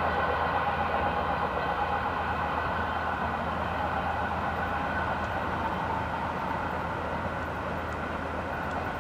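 Two coupled DR1AC diesel multiple units running away from the listener, their diesel engines giving a steady drone that slowly fades as the train recedes.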